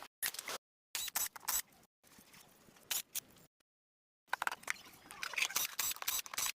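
Choppy string of short clips of small scraping and clicking handling noises, each cut off abruptly into dead silence.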